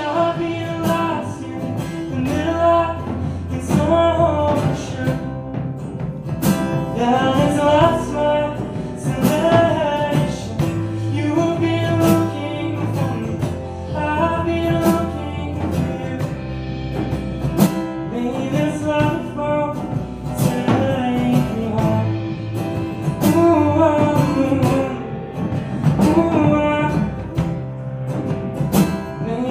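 Live band playing an acoustic song: strummed acoustic guitar, bass guitar and drum kit, with a sung melody over them.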